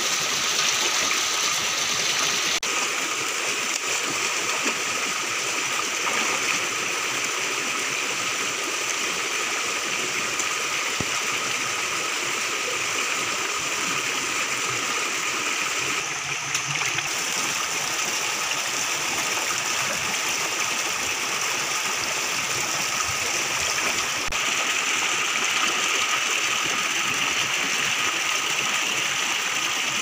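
Shallow rocky stream running steadily over stones and small cascades, a continuous rush of water.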